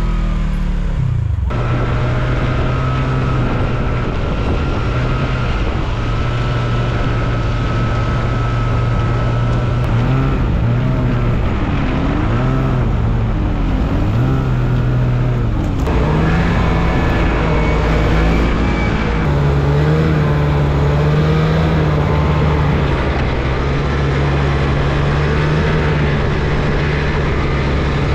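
Kawasaki KRX1000 UTV's parallel-twin engine running under load while the machine drives on rubber snow tracks. The engine speed rises and falls repeatedly between about ten and sixteen seconds in, then holds steadier and a little higher.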